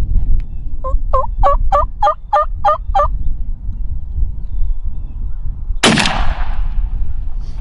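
A wild turkey tom gobbles, a rapid rolling run of warbling notes lasting about two seconds. About three seconds later comes a single loud shotgun blast with a short echoing tail.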